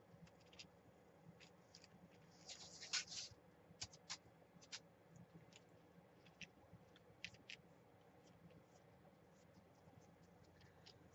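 Faint scratching and light ticks of a pointed pick and fingertips working a transfer image off paper card, with a short louder scratchy rustle about three seconds in. Otherwise near silence.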